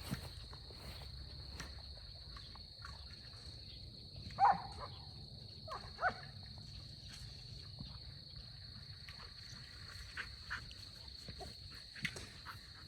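Crickets chirring steadily and faintly at a high pitch, with a few short brief calls from some other animal, the loudest about four and a half seconds in and more near six seconds and near the end.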